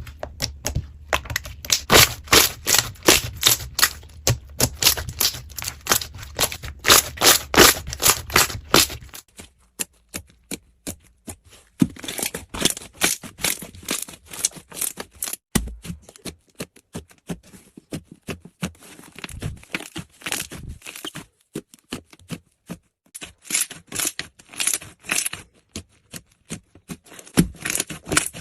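Slime being squeezed and poked by hand, giving rapid runs of sticky clicks and pops, several a second. The clicking is louder in the first nine seconds, with a low hum beneath it, then softer.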